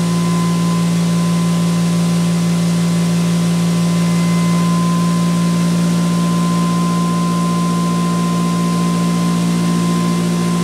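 Electric prime mover and ReGenX generator prototype running steadily at about 3,450 RPM, a constant, even hum. The generator has just been taken off load, so the set is spinning back up to its no-load speed.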